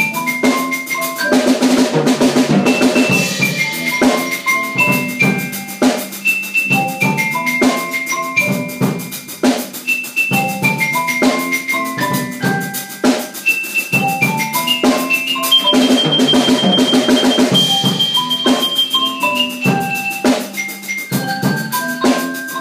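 Student percussion ensemble playing a rock tune: a melody on marimba and other mallet keyboards over a drum kit groove, with busier drum fills twice, near the start and about two-thirds of the way through.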